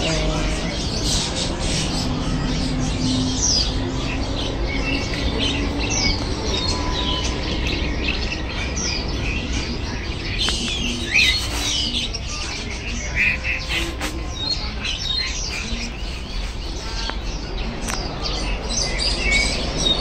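Many caged songbirds chirping and calling over one another, a dense mix of short rising and falling whistles and chirps that carries on throughout.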